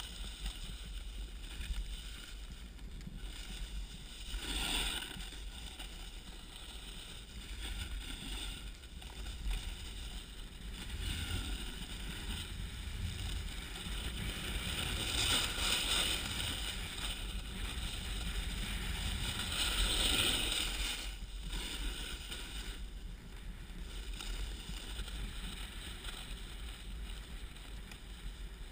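Snowboard sliding over snow, its hiss swelling into louder rushes several times, as on turns, over a steady low wind rumble on the microphone.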